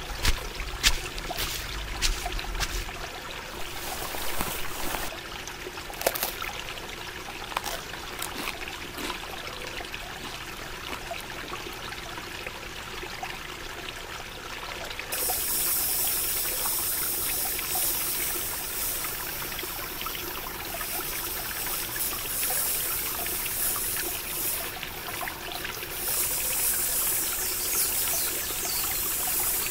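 Summer countryside ambience: scattered ticks and clicks for the first half, then about halfway a high, steady insect buzz sets in suddenly, growing louder near the end.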